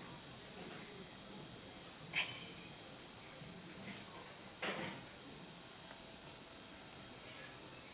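Night chorus of crickets trilling steadily at two high pitches, one of them pulsing fast. Two brief clicks cut through it, about two seconds in and again near five seconds.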